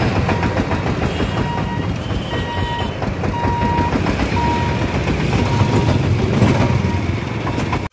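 Motorcycle and small van engines running as road traffic crosses a railway level crossing, with a faint high beep repeating about once a second.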